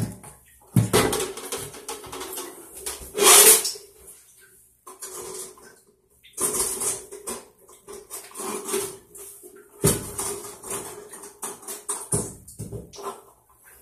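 Irregular clattering, knocking and rustling of things being handled at a bathroom sink, in uneven bursts with short pauses between them. A faint steady hum runs underneath.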